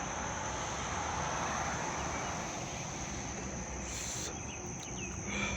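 A long drag on a delta-8 vape cartridge: a soft breathy hiss of drawing in for about three seconds that then fades, with no coughing. A steady high-pitched tone sits underneath, and a brief high hiss comes about four seconds in.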